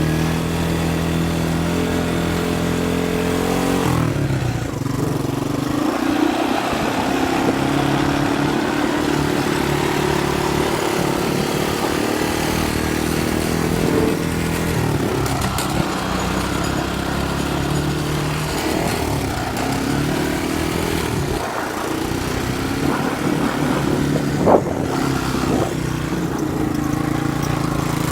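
Small engines of a three-wheeler ATC and a riding lawn mower running and revving, their pitch rising and falling as they speed up and slow down. One sharp knock comes near the end.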